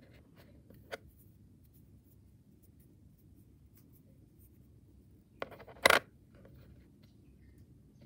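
Fingers handling a bimetallic 10-baht coin on a tabletop and turning it over: faint rubbing, a sharp click about a second in, then two clicks close together about five and a half seconds in as the coin taps down onto the surface, the second one loud.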